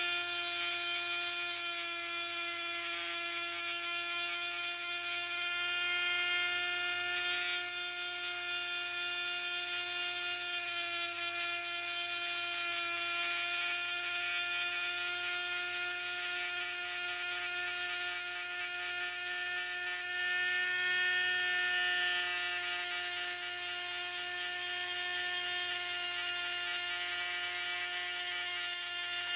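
Dremel-clone rotary tool running through a flexible extension shaft with a small grinding stone, giving a steady high whine as the stone is worked lightly over the teeth of a worm wheel to dress off machining marks.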